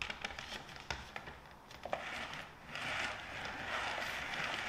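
Two plastic lazy susan turntables handled on a stone countertop. First come a few light clicks and taps of the plastic rims. Then, from about halfway in, there is a steady rushing sound as flat hands sweep across their rubber non-slip mats and turn the trays.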